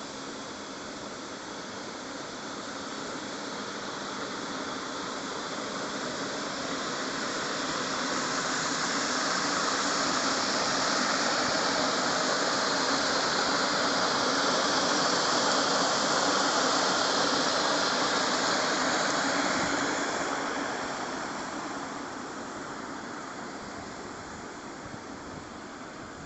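Shelled corn pouring from a grain elevator downspout into a hopper rail car: a steady rushing hiss that grows louder through the middle and fades after about twenty seconds.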